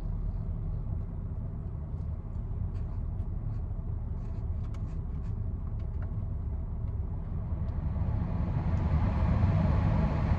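Car cabin noise while driving: a steady low engine and road rumble with a few faint clicks, growing louder near the end.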